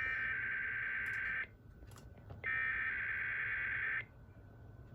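Emergency Alert System SAME header: bursts of digital data tones, each about a second and a half long with a pause of about a second between them. Two full bursts sound, and a third starts near the end. This is the coded header that opens an EAS alert.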